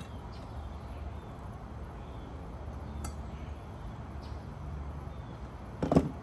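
Work handling during an air-conditioner installation: a low steady hum, a light click about three seconds in, and a single sharp knock near the end.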